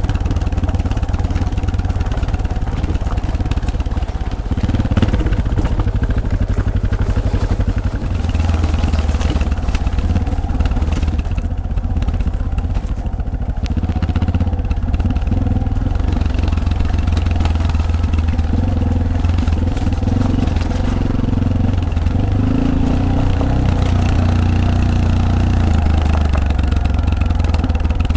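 Yamaha Serow 250 motorcycle's air-cooled single-cylinder four-stroke engine running steadily under way on a gravel forest road, with small changes of throttle.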